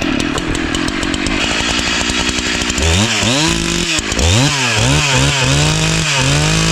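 Two-stroke chainsaw running. About three seconds in it is revved up and down several times, the engine pitch swooping and dipping, then it is held steady at high revs. This is the saw at full throttle being worked into a pair of chainsaw protection trousers.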